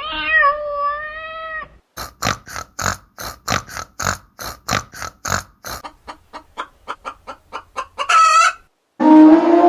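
A series of animal calls: first one long pitched call, then a run of short sharp calls, about three a second and quickening, then a brief high wavering call. A new, loud, drawn-out call begins near the end.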